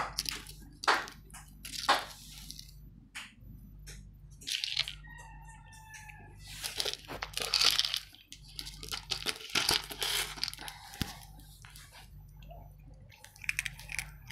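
Clear plastic jar of crumbly food being rolled and pushed across a hard floor, giving irregular crunching, scraping and rattling.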